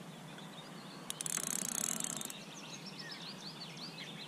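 Carp fishing reel's drag clicking rapidly for about a second as the hooked carp pulls line off. Birds chirp afterwards.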